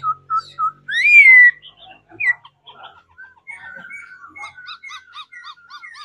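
Caged laughingthrush (khướu) singing. A few short whistled notes open the song, then comes a loud rising-and-falling whistle about a second in, then scattered chips. From about three and a half seconds in, a softer quick run of repeated notes follows, about four a second.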